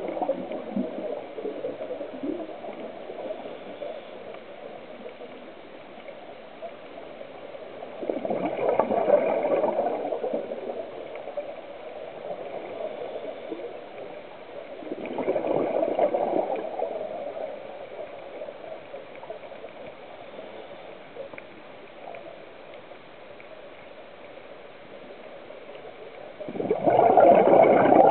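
Scuba regulator exhaust heard underwater: a diver's exhaled breath bubbling out in four loud gurgling bursts several seconds apart, with a steady faint hiss between them.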